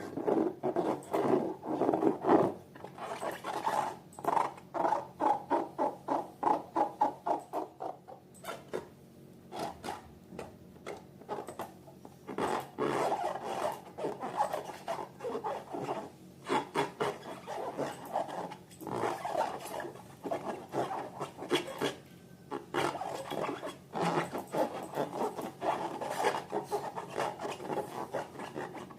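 Slime being kneaded and stirred by hand: a quick, irregular run of short sticky squelches, easing off for a few seconds now and then.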